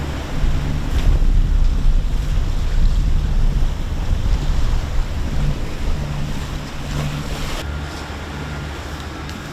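Wind buffeting the microphone over the rush of waves along a sailboat's hull in a rough sea, with a low rumble that is loudest in the first few seconds. A faint thin steady tone comes in near the end.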